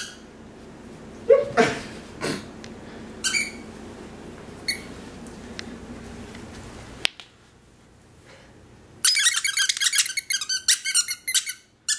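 Squeaker in a plush raccoon dog toy squeezed by hand. A few single squeaks come in the first five seconds, then from about nine seconds in comes rapid, continuous high squeaking.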